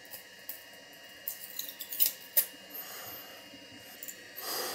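Small crackles and snaps of a 3D-printed plastic raft being peeled and broken away from a printed boat by hand, the sharpest snap about two and a half seconds in, with a short scraping rustle near the end.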